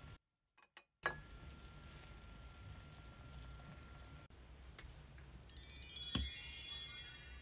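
Fish cake broth simmering faintly in a pot on a gas burner, cut by a brief dropout and a click about a second in. Near the end comes a twinkling chime sound effect: a cascade of high bell-like tones over a single low thump, and it is the loudest sound.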